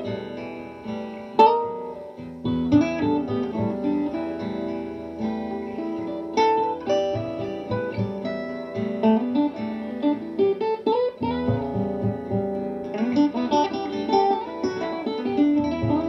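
Acoustic guitar playing an instrumental piece of plucked notes and chords.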